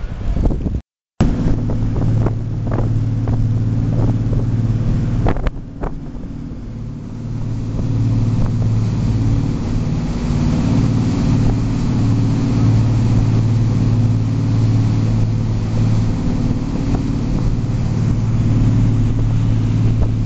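A ferry's engines running with a steady low drone, over the rush of the wake and wind buffeting the microphone on deck. The sound drops out briefly about a second in, and dips for a moment around six seconds in before steadying again.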